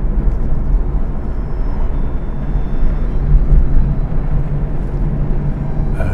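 A vehicle being driven along a street, heard from inside the cabin: a steady low rumble of engine and tyre noise.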